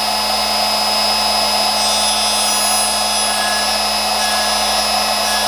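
Router motor of a Screw-Saver machine running steadily, spinning a double-cut carbide burr that grinds the second face of a tiny steel screwdriver blade. A steady whine of several fixed tones over a hiss, without a break.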